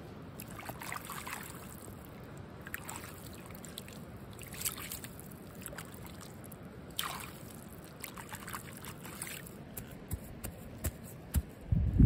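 Shallow rainwater in a flooded rice paddy trickling and gurgling, with scattered small drips and plinks every second or so.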